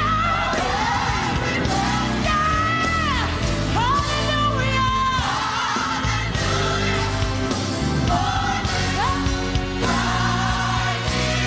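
Gospel singing with band accompaniment: a singer holds and bends long, wavering notes in melismatic runs over steady low backing.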